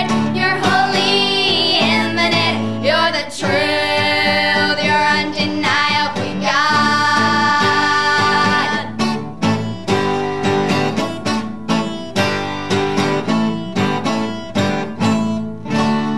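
Girls singing a song together to acoustic guitar. The singing stops about nine seconds in, and the acoustic guitar carries on alone with steady strums.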